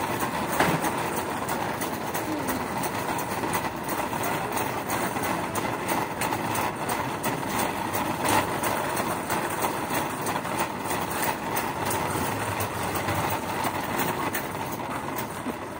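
Metal shopping carts rattling as they roll over a concrete floor, a dense clatter of small clicks over a steady hum of store noise.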